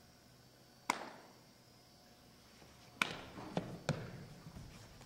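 Sharp knocks with a short echo: one about a second in, a louder one about three seconds in, then a few lighter taps.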